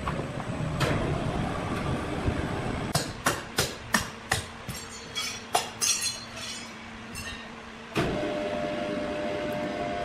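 Sawmill machinery: a low rumble, then a run of sharp metallic knocks and clanks for a few seconds, then a machine starts up suddenly about eight seconds in and runs with a steady hum.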